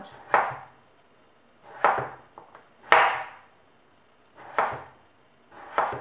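Chef's knife slicing a peeled potato into thin rounds on a wooden cutting board: five separate cuts, each ending in a knock of the blade on the board, spaced a second or more apart.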